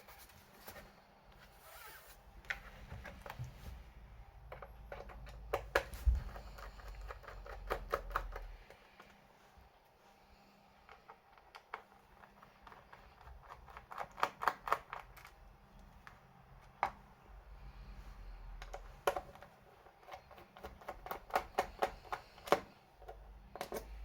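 Bursts of rapid, sharp clicking, several clicks at a time, with low bumps of something being handled.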